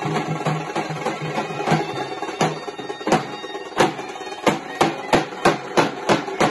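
A dhol band playing: a brass trumpet carries a melody over large double-headed dhol drums beaten with sticks. From about halfway through, loud sharp drum strokes come about three a second.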